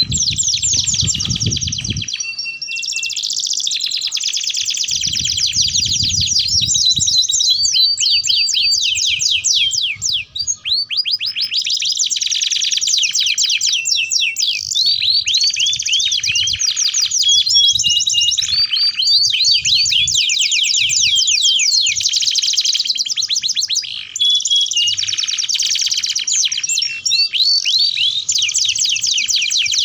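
Domestic canaries singing a long, almost unbroken song of rapid trills and fast runs of repeated high notes, broken by brief pauses about ten seconds in and again about twenty-four seconds in.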